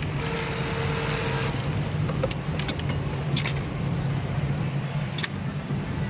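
Industrial sewing machines running on a garment factory floor: a steady low hum, with a brief higher whine in the first second and a half and a few sharp clicks.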